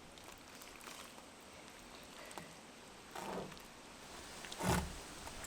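Two short, breathy vocal sounds from a child, one about three seconds in and a louder one near the end, after a quiet stretch.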